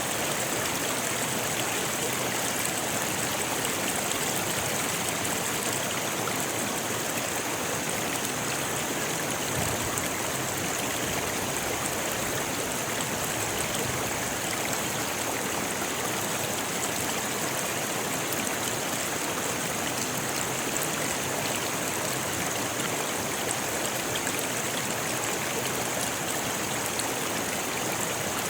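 Rocky river rushing steadily over stones, a constant bright splashing roar with no breaks.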